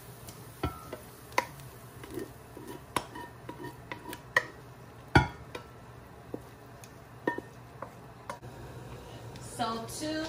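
Wooden spoon scraping and knocking against an enamelled cast-iron Dutch oven and a glass bowl as cooked onions and mushrooms are scraped out: a string of sharp taps and clicks, the loudest about five seconds in, then a short grating scrape near the end.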